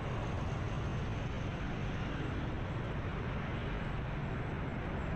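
Steady traffic noise heard while riding a motorbike through busy city motorbike traffic: engines and tyres running together with a low wind rumble on the microphone.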